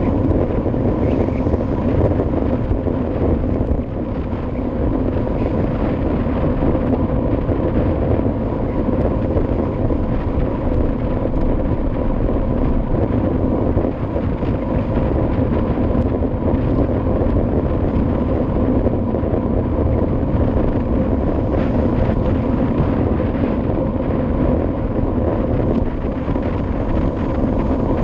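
Steady wind noise rushing over the microphone of a camera riding on a moving bicycle.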